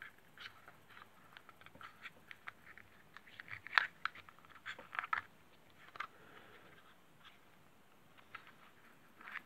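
Small hard-plastic toy accessory being handled and turned over in the fingers: faint scattered clicks and taps, with a few sharper clicks in the middle.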